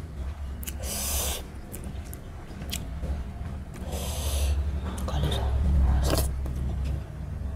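Mukbang eating by hand: fingers working rice and curry on a steel plate, with small wet mouth clicks and chewing, and two sharp breathy sniffs, about a second in and about four seconds in. A steady low hum runs underneath.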